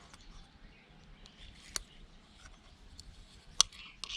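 Strong speaker magnets clicking against each other: a few small ticks, a sharp click a little under halfway through and a louder one near the end.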